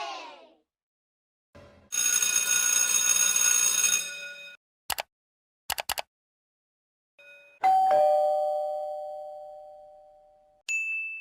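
A run of short editing sound effects: a ringing sound for about two and a half seconds, a few quick clicks, then a two-note doorbell-style ding-dong chime that slowly fades, and a brief high ding near the end.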